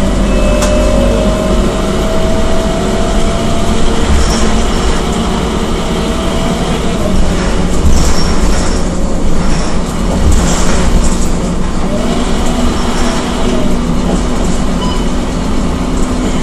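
Cabin noise of a moving Scania K230UB city bus: its five-cylinder diesel engine and drivetrain running with a steady drone and a whine that slides a little in pitch, with knocks and rattles from the body, most around the middle.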